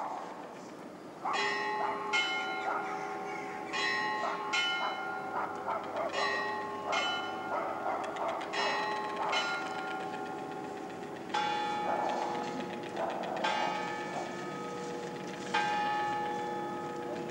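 Church bells ringing, struck in pairs of notes about every two to three seconds, each note ringing on.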